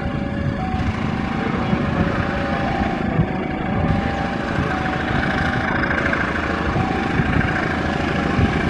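Diesel-electric locomotive hauling passenger coaches, its engine running in a steady rumble, with wheels clicking over the rails as it approaches.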